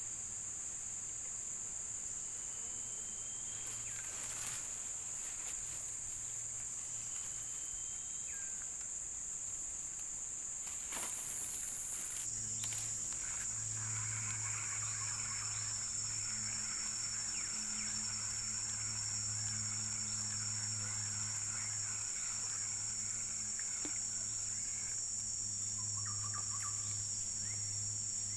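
Insects shrilling steadily in one continuous high-pitched drone, with a low hum underneath. Partway through, a fainter chattering call joins in for about ten seconds.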